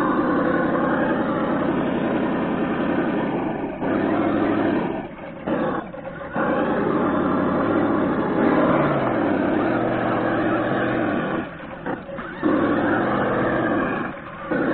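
ESS engine-sound simulator on a Traxxas Summit RC monster truck playing a simulated engine note that revs up and down with the throttle as the truck crawls over rocks. It drops away briefly a few times.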